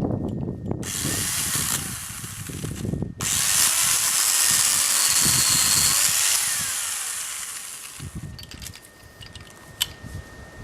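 Telescopic pole chainsaw running in two bursts: a short one, then after a brief stop a longer, louder one starting about three seconds in that winds down and fades away.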